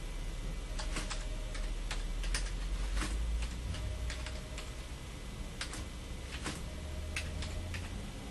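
Computer keyboard being typed on: separate, unevenly spaced key clicks as a short line of text is entered, over a low steady hum.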